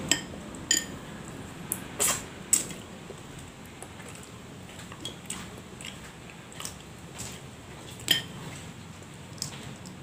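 Sharp clicks and cracks as a small crab's shell is broken apart by hand. There are several loud snaps in the first three seconds, one about eight seconds in, and smaller clicks in between.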